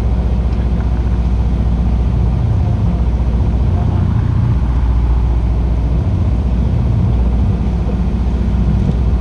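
A small fishing boat's engine running steadily, a low even drone.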